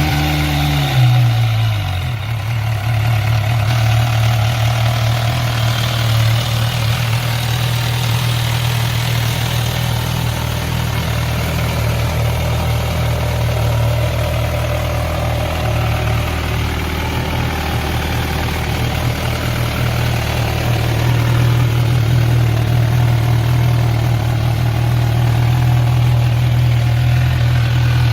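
MV Agusta Brutale 1000 RR's inline-four engine just after starting: the revs fall from a brief flare over the first couple of seconds, then it idles steadily.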